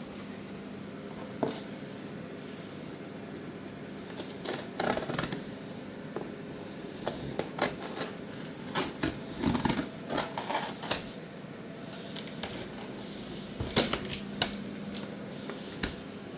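Irregular clicks, taps and rustles of hands handling the microwave's packaging, over a steady low hum. They are most frequent in the middle, with a sharp click near the end.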